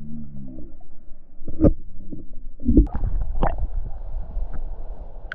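Muffled underwater noise as a diver moves along a stream bed: a low rumble with a few dull knocks, the loudest about a third and halfway in. A short muffled, wavering hum comes at the very start.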